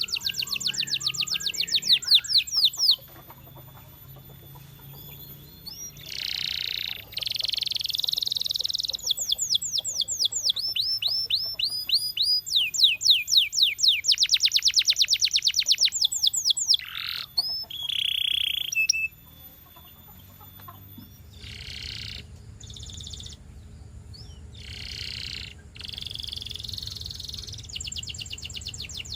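Domestic canary singing: fast trills of repeated down-sweeping notes, alternating with drawn-out whistles and shorter separate notes, in phrases broken by brief pauses.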